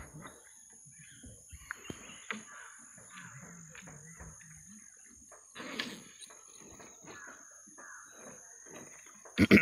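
River and forest ambience from a wooden dugout canoe: birds chirping on and off under a steady high whine, a few sharp wooden ticks about two seconds in, and a loud knock or bump near the end.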